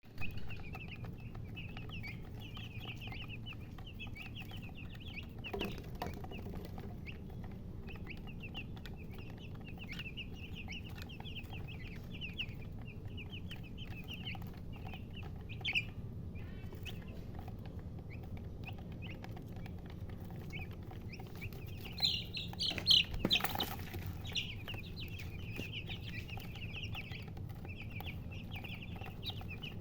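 A group of baby chicks peeping continuously, many short high peeps overlapping, with a louder burst of peeps about three-quarters of the way through. A couple of brief knocks are heard, one near the loud burst.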